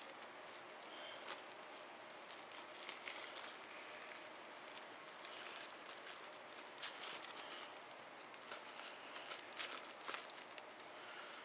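Thin plastic protective sleeve crinkling as a tablet is pulled out of it: faint scattered crackles, coming thicker near the end.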